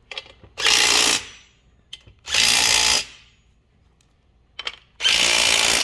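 Cordless DeWalt impact driver with a 9/16 socket running bolts down, in three loud bursts of under a second each.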